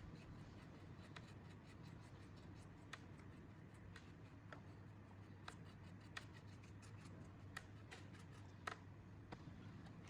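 Faint, irregular small clicks and light rubbing from hands working on small parts, with one sharper click near the end, over a steady low hum.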